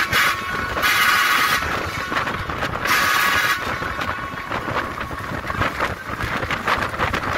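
Bus running along a road with wind rushing past the open window, and a horn sounding in three short blasts in the first few seconds.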